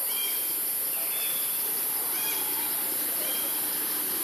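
Forest ambience: a steady high-pitched insect drone, with a bird repeating a short arched call about once a second.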